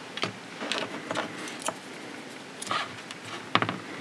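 Small clicks and rattles of a pack of small battery cells and its wire leads being handled on a workbench mat, the loudest a sharp click about three and a half seconds in.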